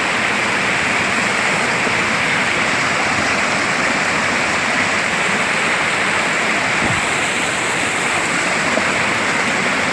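Loud, steady rush of flowing river water.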